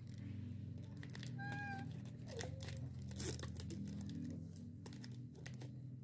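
Irregular crinkling and crackling of plastic wafer-roll wrappers being handled and pressed into place, over a steady low hum. A short pitched tone sounds once about a second and a half in.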